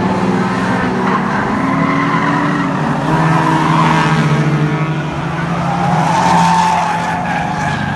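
Several small saloon race cars lapping an oval track, their engines revving up and down as they pass, loudest about halfway through and again near the end, with tyres squealing as they slide through the bend.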